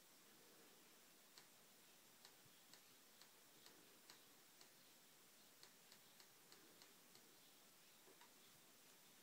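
Faint clicks of the front-panel push buttons on a Sony Betamax SL-F60 video recorder being pressed, about fifteen quick presses at uneven intervals, starting about a second in and stopping near the end.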